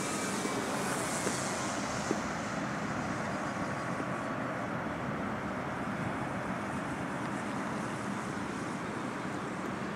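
Radio-controlled Yak aerobatic model plane flying overhead, its motor and propeller a faint steady drone with a thin whine that comes and goes, under a steady rush of wind noise.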